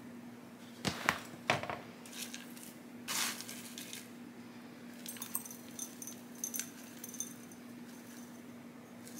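Potting mix with perlite being scooped from a plastic bin with a plastic scoop and poured into a small terracotta pot: scattered light clicks and taps, a short rustle about three seconds in, then a patter of small gritty ticks. A faint steady hum runs underneath.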